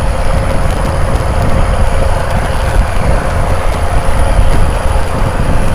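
Fishing boat diesel engines running hard at speed: a loud, steady drone with a held hum-like tone, over the rush of water along the hulls.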